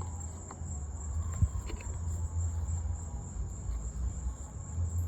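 Steady high-pitched insect trill, like crickets, over a low rumble, with a single sharp knock about one and a half seconds in.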